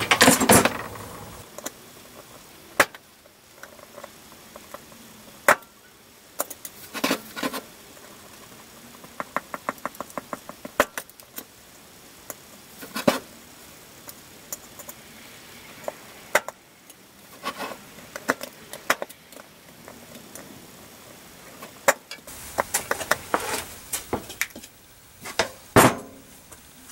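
Scattered knocks, clicks and clatter as a shield and its metal fittings are handled and turned on a workbench, with a quick run of small clicks about ten seconds in and a busier cluster near the end.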